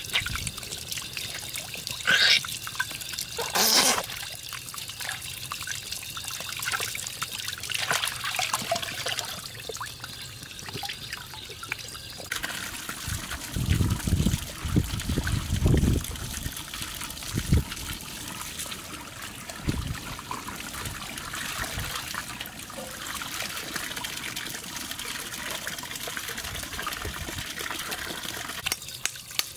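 Water from a tap running steadily into a large metal basin, with sloshing and splashing as a chicken is washed by hand in it. A few sharper splashes stand out, two near the start and several more around the middle.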